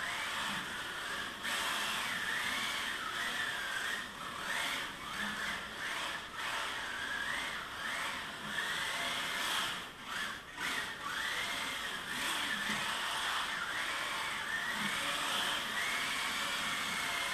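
Electric motor and gear drive of a 1:24 scale mini 4WD RC truggy whining, the pitch rising and falling over and over with the throttle, over a steady hiss. It drops off briefly a couple of times about ten seconds in.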